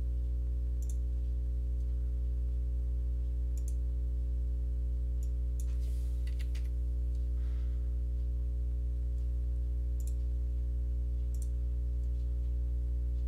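Computer mouse clicking now and then, a few scattered single clicks several seconds apart, over a steady low electrical hum that is the loudest sound throughout.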